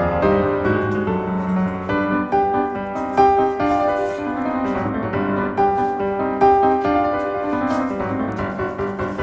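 Background music: piano playing a melody over chords.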